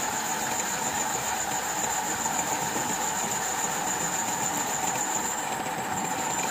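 Portable cylinder boring machine running steadily, its cutter boring out a diesel engine's cylinder to take a new sleeve: an even mechanical running noise with a thin, high whine over it.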